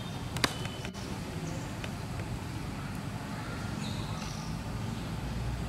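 Low rumble of road traffic, growing a little louder near the end, with a single sharp click about half a second in and a few faint high chirps.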